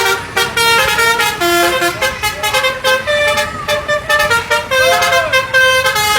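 Basuri telolet multi-tone bus horn playing a melody: a run of held horn notes that jump quickly from one pitch to the next.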